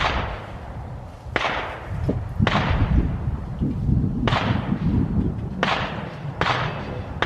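Gunshots on a shooting range: about six sharp cracks at irregular intervals a second or so apart, each with a short decaying echo. A low rumble of wind on the microphone runs under them.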